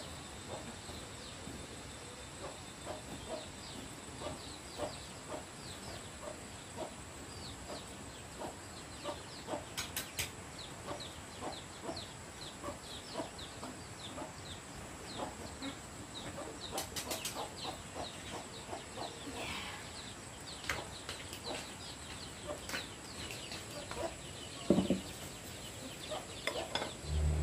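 Chickens clucking, with a steady run of short high calls throughout and a few sharp clicks.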